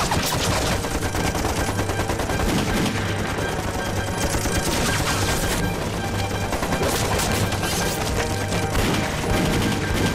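Film battle sound effects: continuous rapid machine-gun and rifle fire, many shots overlapping without a break.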